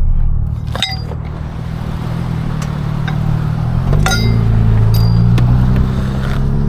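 Vehicle engine running, rising in pitch as it accelerates about four seconds in, with a few sharp metallic clinks near one second and again at four seconds.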